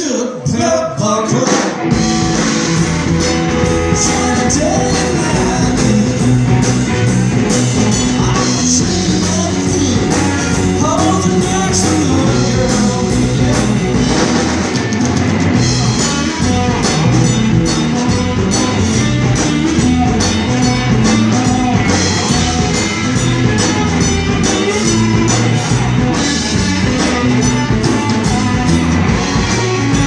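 Live rock band playing: two electric guitars over a drum kit, with a steady run of cymbal strokes.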